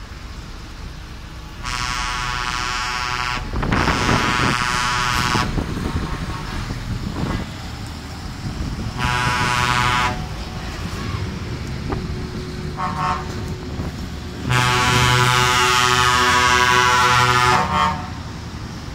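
Truck air horns sounding a series of steady blasts, the longest about three seconds near the end, over the low rumble of passing truck engines.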